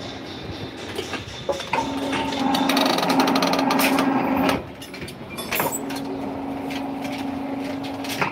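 Electric rebar bending machine running twice: its motor and gearbox hum as the bending disc turns, the first run loud with a bundle of steel bars grating and clanking as they bend, the second run a steadier hum. Metal clicks and knocks from the bars between runs.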